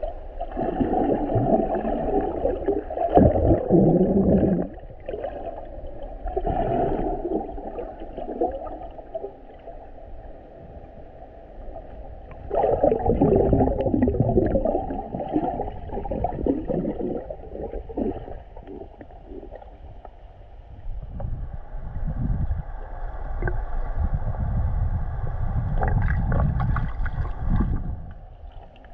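Muffled water sloshing and gurgling picked up by a GoPro held underwater while snorkeling. It comes in surges of a few seconds each.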